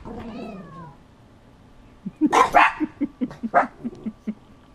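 Dogs barking at a played angry cat sound: after a brief falling whine in the first second, a quick run of barks starts about two seconds in, a few loud sharp barks among shorter, lower woofs.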